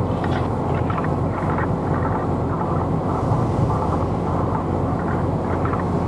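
Strong wind buffeting the microphone over a rough sea: a steady low rumble with irregular short rushes of higher hiss.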